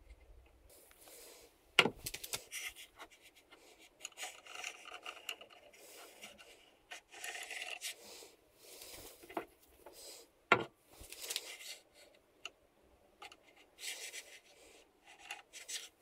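Height gauge scriber scraping across a blued steel bar, marking out hole positions, in short rubbing strokes. Now and then a sharp metal knock as the bar or gauge is shifted on the cast-iron base, the loudest about two seconds in and another about ten seconds in.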